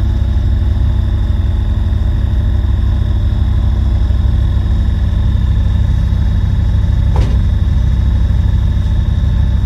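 A vehicle engine running steadily, a low even hum, with one brief click about seven seconds in.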